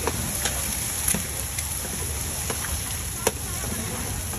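Eggs frying in oil in a large wok, sizzling steadily, while a metal spatula clinks and scrapes against the wok several times as they are stirred.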